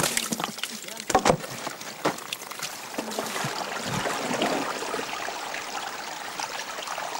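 Water trickling and running through a hole opened in a beaver dam, draining the dammed pond, with a few knocks about a second and two seconds in.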